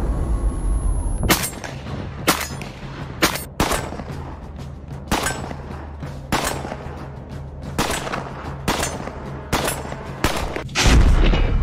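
StG44 rifle fired in single shots, about ten shots roughly a second apart at an uneven pace.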